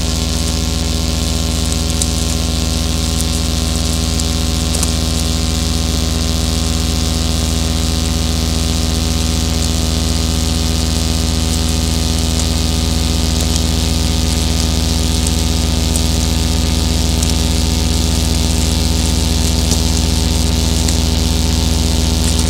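Dense electronic drone from a modular synthesizer: a loud, unbroken low hum under many layered sustained tones and a high hiss, with a slow wavering in the middle and scattered faint crackles.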